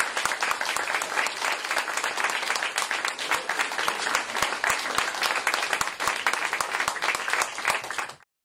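Audience applauding after a song, the clapping cut off abruptly near the end.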